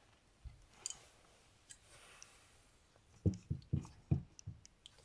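Parts being handled on a workbench: a few faint clicks, then, about three seconds in, a quick run of about six dull knocks.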